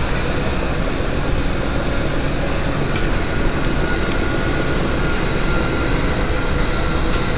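Steady drone of a ship under way: engine and machinery noise mixed with rushing air, with a few faint steady tones running through it.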